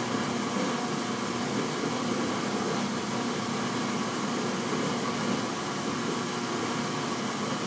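1952 American Kitchens sink dishwasher running a wash: a steady motor hum under the even rush and splash of water thrown by its impeller, which also turns the Roto-Rack.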